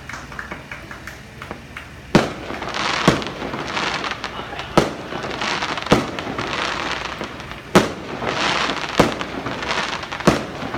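Aerial firework shells bursting: seven sharp bangs at uneven intervals of one to two seconds, each followed by about a second of crackling from the bursting stars. A few faint crackles come before the first bang.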